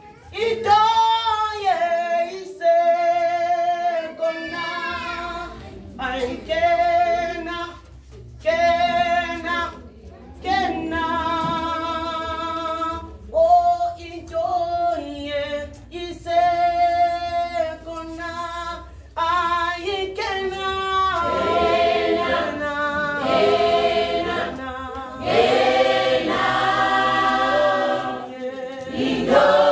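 Women's church choir singing a hymn unaccompanied, in phrases with short breaks between them; the singing grows fuller about twenty seconds in.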